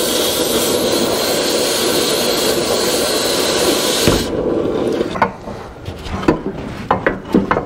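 Cutting torch running with a loud, steady hiss as it cuts a steel threaded rod, cutting off abruptly about four seconds in; then a few light knocks.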